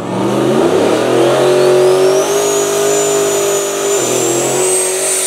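Car engine revving hard under acceleration: the revs climb over the first second or so, hold high, drop suddenly about four seconds in and climb again, with a thin high whine rising over it.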